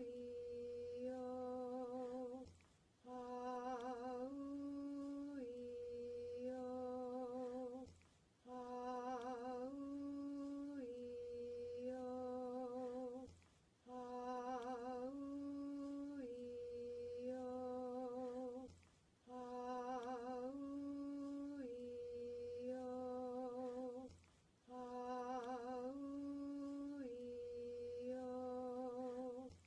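A single voice slowly chanting the vowel sequence "Ah-oo-ee-oh", each vowel held on a steady note with a slight vibrato. The phrase repeats over and over, about every five and a half seconds, with a short pause for breath between repeats.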